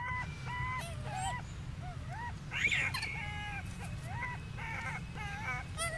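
Baby macaque giving a run of short, high calls, about two a second, with one louder, harsher cry about two and a half seconds in.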